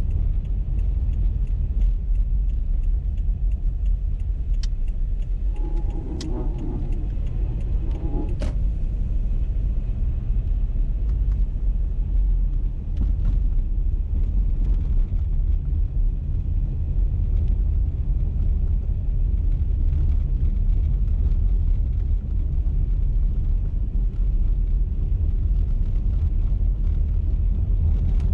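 Car driving along a road, a steady low rumble of tyres and engine. A brief pitched sound with a few sharp ticks comes about six to eight seconds in.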